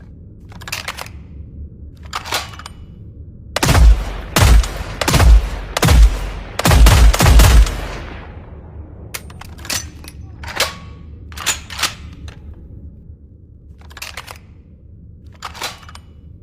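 Fieldmaster HR-10 rifle sound effect: a run of about six loud shots, roughly one every 0.7 s, starting about three and a half seconds in, each with a deep boom and an echoing tail. Lighter sharp clicks come before and after the shots, over a low steady hum.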